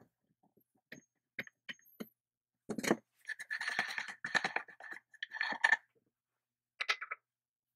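Painted metal clamp parts of a Soviet IE-5601A chain mortiser being handled and fitted on a wooden workbench: a few light clicks and a knock, then about two seconds of metal scraping with a ringing note, another short scrape, and a brief clink near the end.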